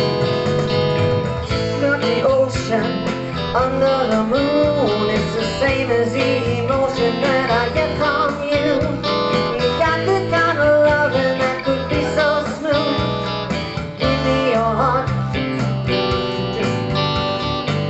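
Live pop music from a guitar-and-vocal duo: an electric guitar played through a small amplifier over a steady beat, with a woman singing in places.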